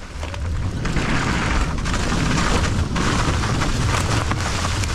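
Mountain bike riding fast down a rough dirt trail: heavy wind buffeting on the camera microphone over the steady rattle and crunch of tyres and the bike on the ground.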